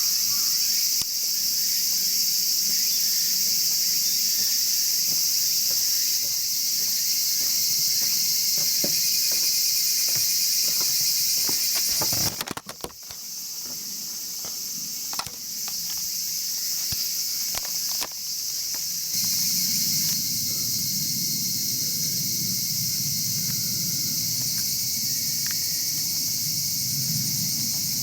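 A steady high-pitched insect chorus, with scattered crackles and pops of firewood burning in a chimney fire pit.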